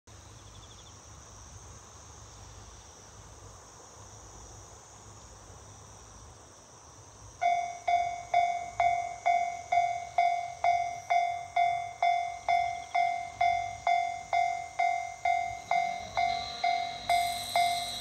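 A faint steady outdoor background, then about seven seconds in a Japanese railway level-crossing warning bell starts ringing, sharp repeated strikes about twice a second, signalling an approaching train. Near the end a low hum joins the bell as the barrier arms begin to lower.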